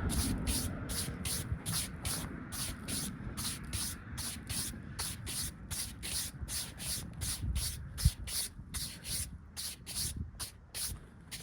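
A brush scrubbing in a steady rhythm of about four quick strokes a second, with a single thump about eight seconds in.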